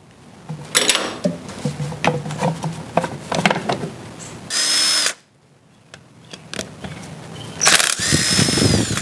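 Cordless drill with an 8 mm socket on an extension spinning bolts out of a scooter's belt-drive cover. It runs in two short, steady, high-pitched bursts, about halfway through and again near the end, with clicks and clinks of loose metal bolts and tools in between.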